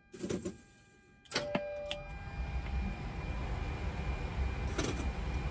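Boeing 737 NG flight-deck switches clicking, with a short beep, then a steady whirring rumble sets in about two seconds in as the aircraft's electrical equipment comes up on main AC power.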